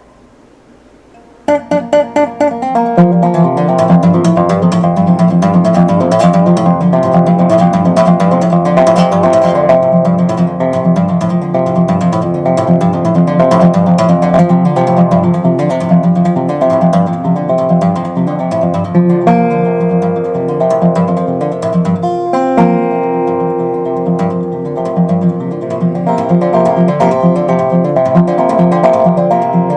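Resophonic guitar played solo: a picked instrumental with a steady low bass note under the melody, starting about a second and a half in after a brief hush.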